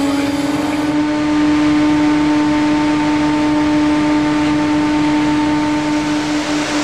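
Fishing boat's engine running steadily, a constant low humming tone with a fainter higher tone above it.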